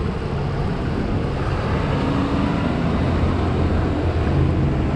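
Road traffic on a busy road: a steady rumble of passing cars with a low engine hum.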